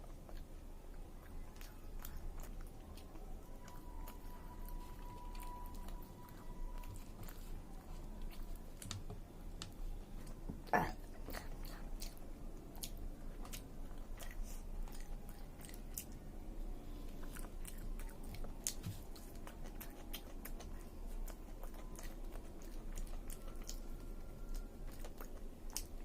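A person chewing and biting mouthfuls of chicken biryani, with many small wet mouth clicks throughout and one sharper click about eleven seconds in.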